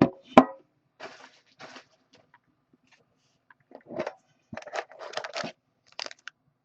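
Card-box packaging being handled and opened: two sharp clicks at the start, then scattered crackling crunches, with a busier stretch about four seconds in and a few small clicks near the end.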